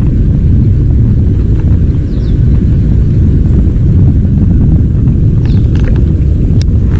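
Steady low rumble of wind buffeting a chest- or head-mounted camera's microphone, with a few faint high chirps about two seconds in and a sharp click near the end.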